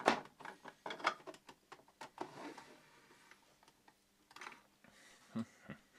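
Light knocks and clicks of resin model-kit hull parts being handled, fitted together and set down on a desk, a cluster in the first two and a half seconds, then a few more near the end.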